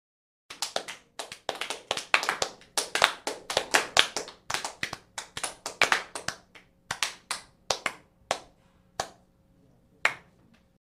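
Hand clapping: quick, close-set claps that thin out to a few single claps near the end.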